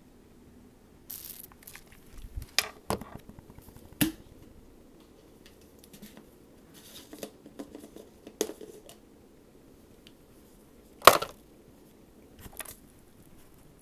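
Handling noises: scattered clicks, sharp knocks and rustling, with the loudest knock about eleven seconds in.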